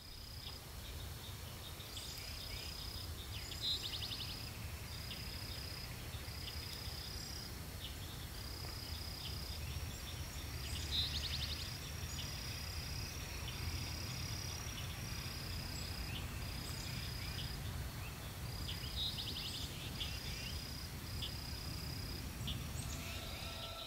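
Evening insect chorus: a high-pitched call pulsing about once a second, with bursts of rapid clicking every several seconds, over a low steady rumble.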